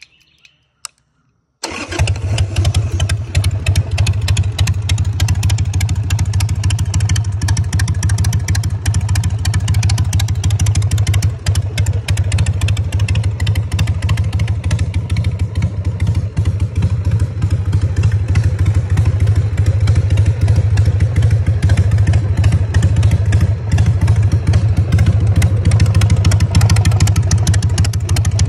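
2001 Harley-Davidson Sportster 883's air-cooled V-twin, running through an aftermarket exhaust, catches on the electric starter about two seconds in and then idles steadily.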